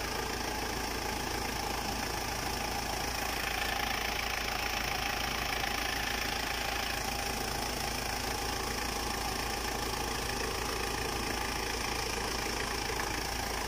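Mitsubishi 4M40 2.8-litre four-cylinder turbo diesel idling steadily, with no change in speed.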